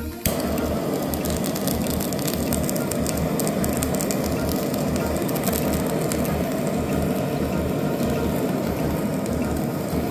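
Handheld kitchen blowtorch flame, starting suddenly and then burning with a steady jet hiss and a low fluttering rumble as it sears the skin of raw fish fillets.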